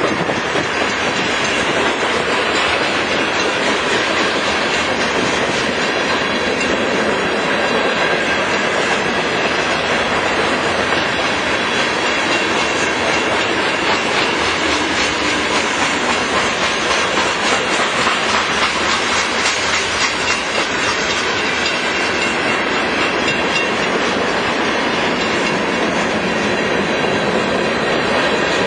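Freight train of covered hopper and tank cars rolling steadily past at a grade crossing: a continuous rumble and clickety-clack of steel wheels over the rails.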